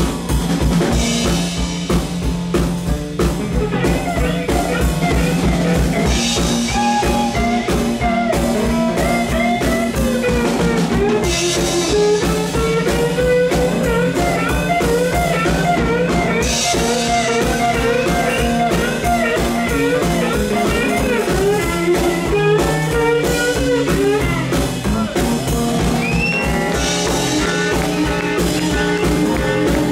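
Live blues: semi-hollow electric guitar played slide-style with a glass bottle on the strings, gliding up and down between notes, over a drum kit keeping a steady beat. The sliding lines start a few seconds in.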